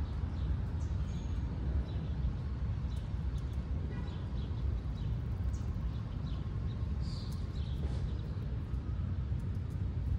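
Outdoor ambience: a steady low rumble with scattered short bird chirps throughout.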